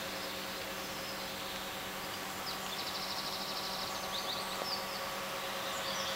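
Steady low hum and hiss of an empty railway platform, with faint rapid high chirps or trills around the middle.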